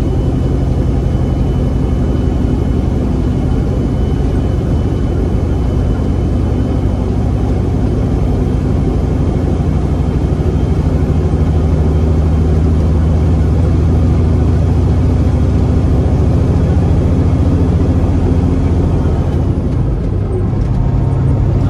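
A Caterpillar C15 diesel in a Peterbilt 389 running steadily at highway cruising speed, heard from inside the cab as a low drone. The drone dips and shifts briefly near the end.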